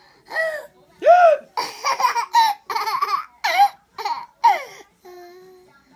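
A baby squealing and laughing in a string of short, high-pitched vocal bursts, each bending up and down in pitch. Near the end comes a lower, steady hum.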